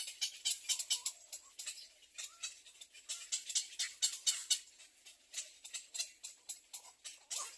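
Nestling birds making rapid, high-pitched chirps, many short calls a second, in clusters with brief lulls: the begging calls of chicks in the nest.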